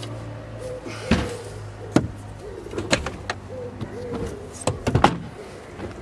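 A string of sharp knocks and clunks from hard objects being moved about in the back of an open car, several coming close together about five seconds in, over a steady low hum.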